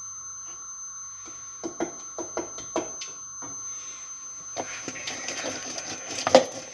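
A quick run of light knocks, then a lemon half twisted hard on a plastic lemon juicer, a rough grinding scrape with one loud knock near the end.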